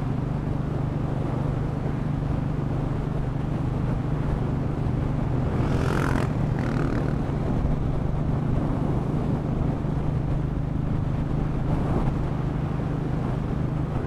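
Royal Enfield Bullet 500 single-cylinder engine running steadily, with road noise, while the bike is ridden at an even pace. A brief rushing hiss comes about six seconds in.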